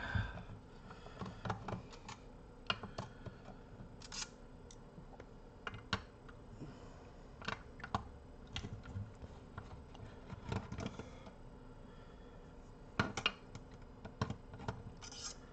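Screwdriver working screws out of a car amplifier's metal chassis: irregular small metal clicks and short scrapes, with a louder cluster of clicks about 13 seconds in.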